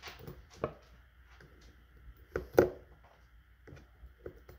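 Sparse light clicks and taps from handling a fishing reel while old line is pulled off it by hand. The loudest tap comes about two and a half seconds in.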